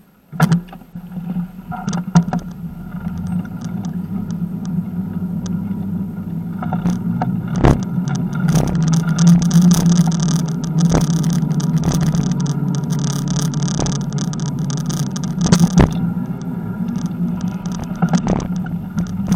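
Bicycle riding on asphalt, heard from a bike-mounted camera: a steady drone of tyres and wind that builds over the first several seconds as the bike picks up speed, with scattered knocks and rattles from bumps in the road.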